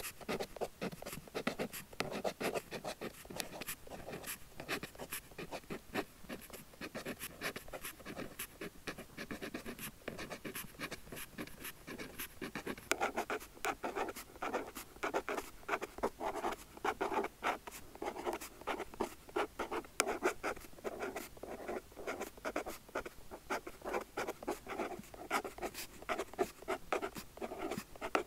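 A pen nib scratching across paper in quick, continuous handwriting strokes, a little fuller and louder about halfway through.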